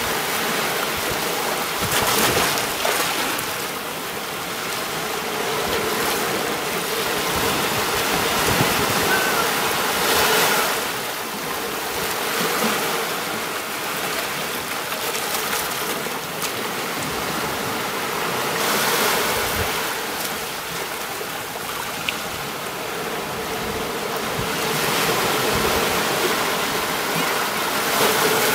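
Sea waves washing onto a beach, the surf swelling and falling back about every eight or nine seconds.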